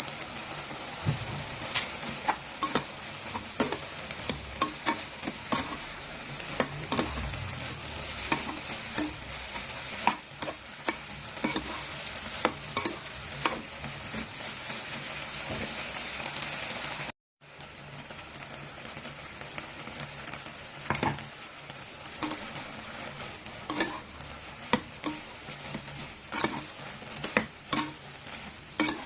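Shrimp frying in hot oil in a pan, sizzling steadily, with frequent sharp clicks of a utensil stirring against the pan. The sound cuts out for a moment about two-thirds of the way through, and the sizzle resumes a little softer.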